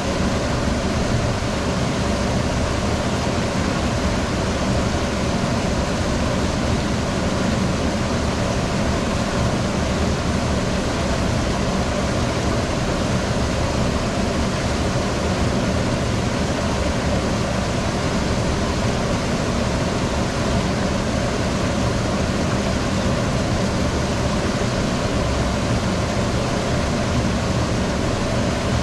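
Laboratory water flume running: a steady rush of water flowing down the channel, with a low steady hum beneath it.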